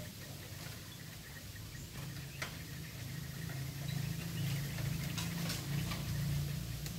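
A mongoose moving about in dry grass and bamboo litter: scattered light ticks and crackles, a few at a time, over a low hum that gets louder about halfway through.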